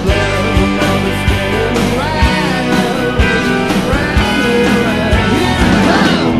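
Studio recording of a rock song: drums keeping a steady beat under bass and guitars.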